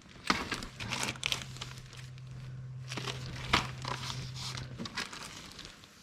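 Plastic packaging crinkling and rustling in handling, with irregular small clicks and knocks as parts are rummaged through. A low steady hum runs underneath and stops a little before the end.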